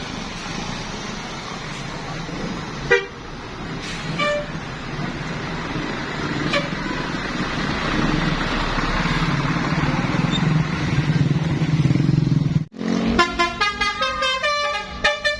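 Road traffic with a large vehicle's engine noise growing louder, broken by two short horn toots in the first few seconds. After a sudden break near the end, a bus's basuri telolet horn plays a rapid multi-tone tune.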